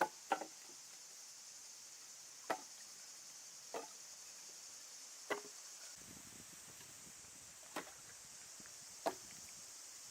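Chopping strokes, single sharp hits about every one to two seconds, with two in quick succession at the start.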